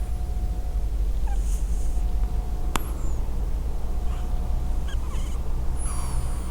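Scottish Straight cat snoring: a steady low rumble with a breathy rush of air every few seconds and a faint high whistle near the end. One sharp click about three seconds in.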